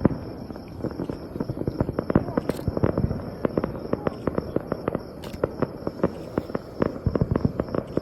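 Aerial fireworks going off: a dense, continuous crackle of rapid sharp pops and bangs, many a second, with no pause.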